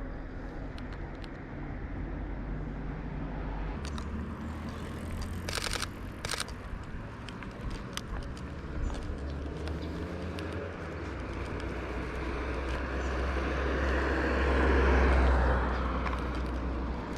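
A vehicle passing: its noise builds, peaks about three-quarters of the way in and fades, over steady outdoor background noise. A couple of sharp clicks come about a third of the way in.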